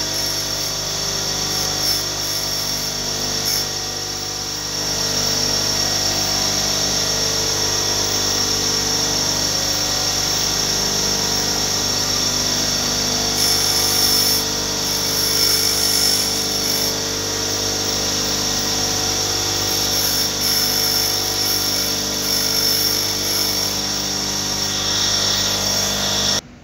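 Bench grinder running steadily while a thin steel wire, the spring wire of a clothespin, is held against the spinning stone wheel and ground. The contact adds a high hissing scrape that comes and goes. The sound cuts off abruptly just before the end.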